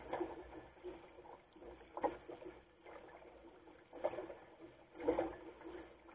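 Water splashing against the hull of a Goat Island Skiff sailing dinghy under way through choppy water, with louder splashes about every second or two as it meets the waves.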